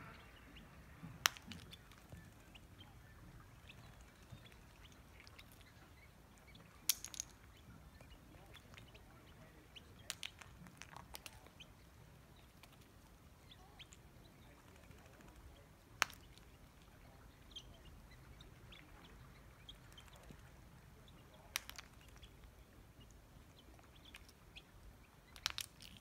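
Herring gull pecking and tugging at a clam on a rock: sharp taps of bill and shell against stone, about eight of them spaced a few seconds apart, over a faint steady background.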